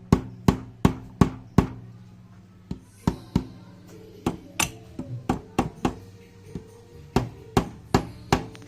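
Background music with sustained low tones under a string of sharp knocks, roughly two to three a second.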